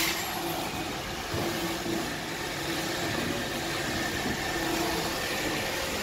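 iRobot Roomba 780 robot vacuum running its suction motor and brushes during a suction test: a steady whirring hum with a faint high whine. A short sharp click comes right at the start.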